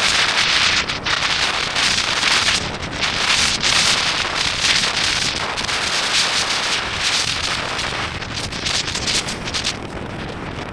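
Strong gusting wind buffeting the microphone, a loud continuous rushing roar that surges and eases in gusts.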